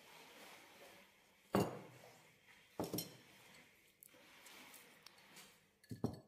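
Ceramic bowls and metal spoons clinking and knocking as the bowls are handled and set down: three sharp knocks, the loudest about a second and a half in and a quick double knock near the end.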